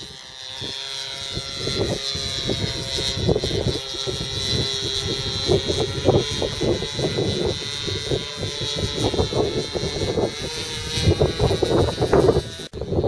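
An autogyro's propeller engine drones steadily as it flies past overhead, its whirring rotor and the buzz of the engine mixed together.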